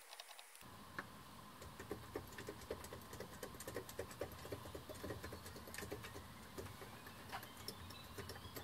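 Faint, irregular clicking and tapping of the Yamaha SY22's plastic keys being pressed in quick succession across the keyboard, the bare mechanical sound of the keybed as each key is checked after a keybed repair.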